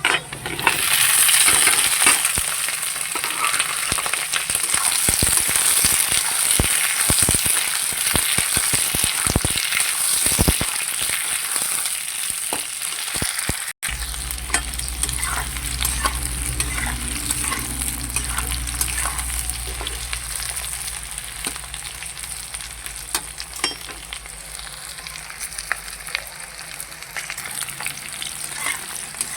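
Food sizzling in hot oil in a pan while a spatula knocks and scrapes against it in stirring. The sizzle starts loud just after the beginning, breaks off for an instant about halfway, then carries on over a low hum.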